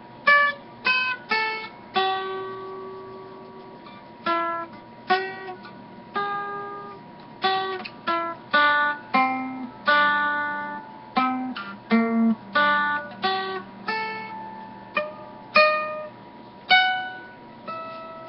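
Mandolin played as single picked notes in a slow melody, about one or two notes a second, each ringing and fading. The instrument has just been reassembled and its strings sit about 5 mm above the frets at mid-fingerboard, too high for easy playing.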